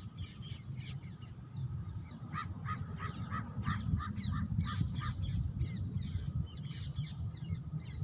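Parrots calling: many short chirping calls, coming in a quick even run of about three a second between about two and five seconds in, over a steady low rumble.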